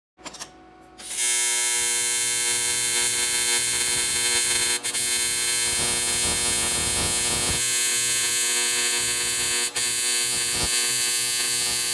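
AC TIG welding arc on aluminium with 4043 filler rod: a steady, harsh buzz at the machine's 120 Hz AC frequency setting. It starts with a short, quieter crackle about a second before the full arc comes in, and drops out for an instant twice.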